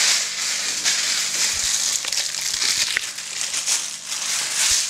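Thin plastic bag crinkling and rustling without a break as hands work it open around raw pork brain.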